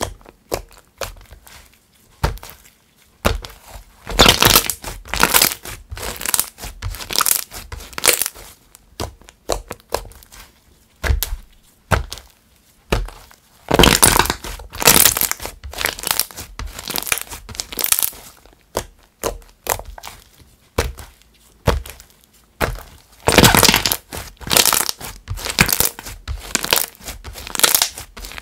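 Hands stretching, folding and squeezing a soft clay slime, giving many small sticky clicks and pops in bursts a few seconds apart, with quieter gaps between.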